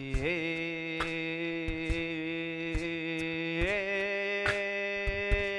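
A group of people toning together on long held vowel sounds. The note steps up in pitch twice, and short drum beats fall at irregular intervals.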